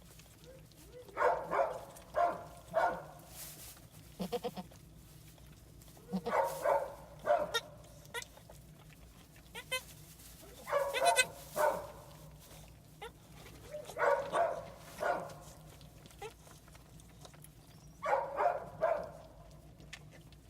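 Goat bleating, in groups of two or three calls that come about every four seconds.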